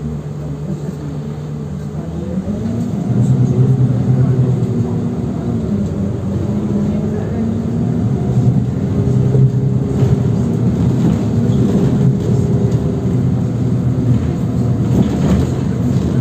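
City bus driving, heard from inside the passenger cabin: a steady drive hum with road noise, which gets louder about two seconds in.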